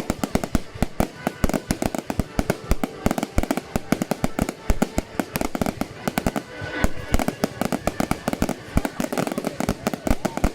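Fireworks going off in a dense, continuous crackle of many small bangs, several a second.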